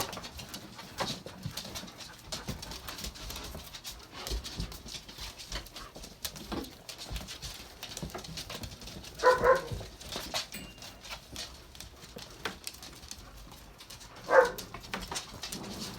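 A dog whimpering twice in short, high cries, with scattered light clicks and taps of movement in between.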